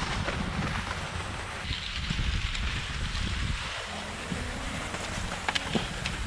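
Wind buffeting the microphone during fast skate skiing, a steady rumbling hiss.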